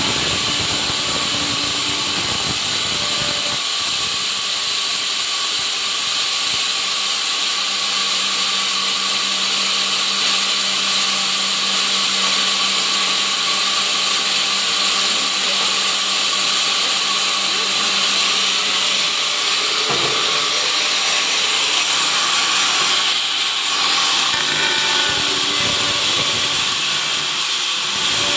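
Vertical sawmill running and sawing through wood, a steady loud machine-and-blade noise, with a low hum underneath for part of the cut.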